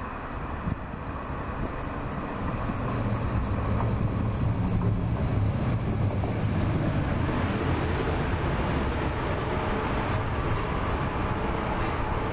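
DB Class 143 electric locomotive and its x-Wagen coaches pulling into the station, the rolling rumble of the train growing louder from about two seconds in as the locomotive draws level and the coaches roll past.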